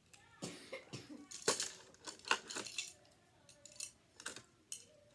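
Tiny plastic miniature pieces being picked up and set down, a string of light, irregular clicks and taps.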